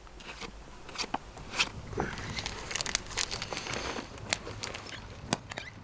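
Irregular crinkling and crunching rustles close to the microphone, with a scatter of sharp crackles and no steady rhythm.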